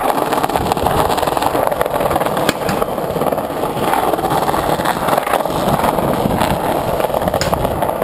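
BMX bike rolling on pavement: a steady, loud rumble of tyres on hard ground, with a few faint clicks.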